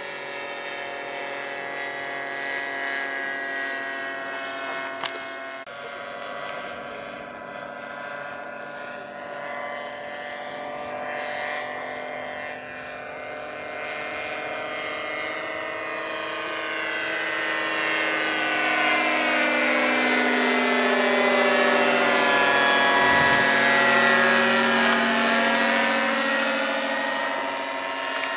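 Radio-controlled Airco DH.2 scale biplane model's engine and propeller droning steadily in flight, its pitch shifting about six seconds in, then growing louder as the model flies closer, loudest a little past two-thirds of the way through before easing off.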